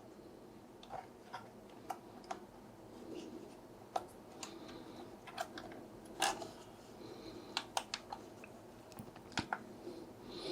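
Light, irregular plastic clicks and taps, a dozen or so, from handling a DJI RC2 drone remote controller.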